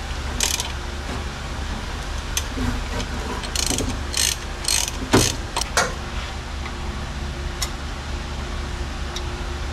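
Hand ratchet wrench clicking in several short runs over the first six seconds as a bolt on a Pontiac 350 engine is worked, then a steady low hum.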